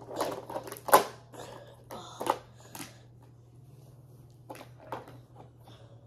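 Hard plastic toys knocking and clattering as they are handled, with a sharp knock about a second in and another just after two seconds, then a few light clicks.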